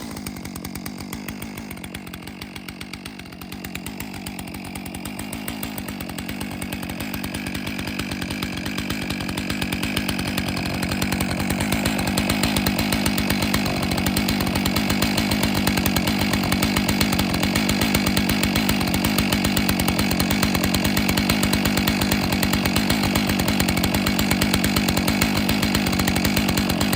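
Stihl MS661 C two-stroke chainsaw idling steadily after a cold start, growing gradually louder over the first twelve seconds or so, then holding steady.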